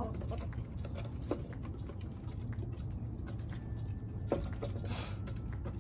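Hens pecking seed and grain treat mix off a wooden tray: quick, irregular clicks of beaks striking the mix and the wood, over a steady low rumble.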